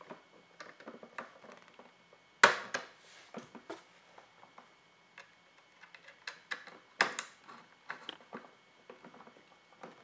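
Small clicks and scrapes of needle-nose pliers and a screwdriver working copper wire loops onto a wall outlet's brass terminal screws. Two sharper clicks stand out, about two and a half seconds in and about seven seconds in.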